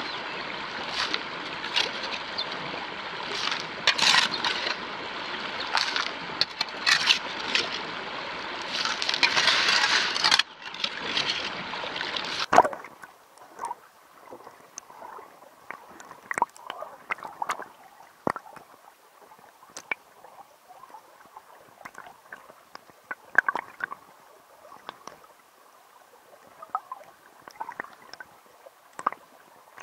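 A loud, rough scraping and rushing noise for about twelve seconds, which then cuts off abruptly. After that, muffled water sloshes with scattered small clicks as a plastic gold pan of river gravel is dipped and swirled in shallow stream water.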